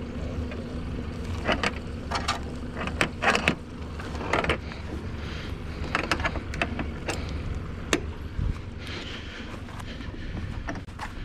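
Nylon dock line being untied from a cleat and handled, with scattered knocks and clicks on the boat and dock, over a steady low rumble.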